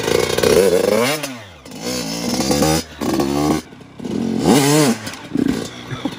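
Yamaha YZ85 two-stroke dirt bike engine revving up and dropping back several times, with a short lull about four seconds in, as the rider works the throttle to lift into a wheelie.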